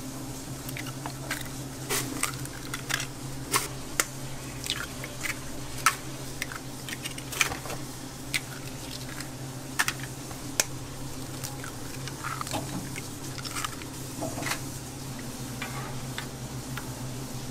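Fresh eggs cracked by hand one after another into a plastic mixing bowl: repeated sharp shell cracks with wet squishing as the whites slide out. Near the end a wire egg separator scoops yolks out of the pooled whites. A steady low hum runs underneath.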